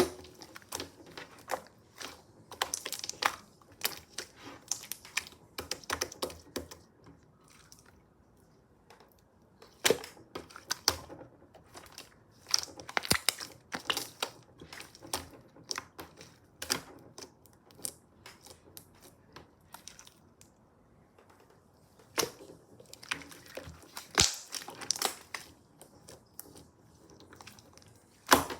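Hands playing with slime: irregular clusters of sticky clicks, pops and crackles as it is pressed, stretched and folded, with short quieter pauses.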